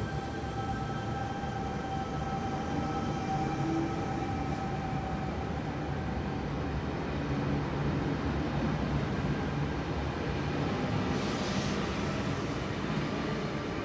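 Stainless-steel double-deck electric suburban train rolling past along the platform, wheels and motors giving a steady rumble with a faint held whine that fades out about five seconds in. A brief hiss comes about eleven seconds in.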